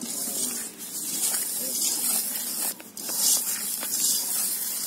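Hand rubbing and squeezing a dry flour mix of ragi, gram and rice flours in a steel bowl: a rough, hissing rustle in uneven strokes, broken by brief pauses twice.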